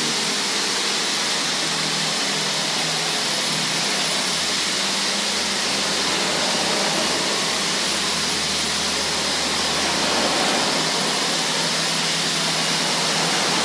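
Gas torch burner hissing steadily as its blue flame is swept over a car's painted hood.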